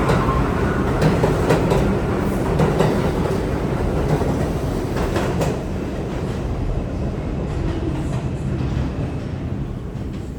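NYC Subway R62A train running on the tracks, a steady rumble with sharp clicks from the wheels over the rail joints; the sound eases off over the last few seconds.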